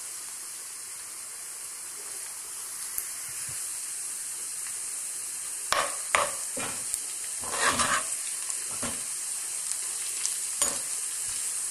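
Sliced onions and cumin seeds sizzling steadily in hot oil in a frying pan. From about six seconds in, a wooden spatula stirs through them in several scraping strokes.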